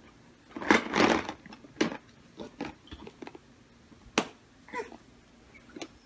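Plastic laundry basket knocking and scraping as a baby climbs over its rim and tips in headfirst: a loud scraping rustle about a second in, then scattered light knocks, the sharpest a little after four seconds.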